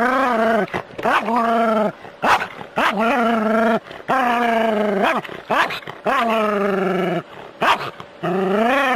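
A dog crying out in a string of long, wavering yelps, about seven in a row with short breaks between.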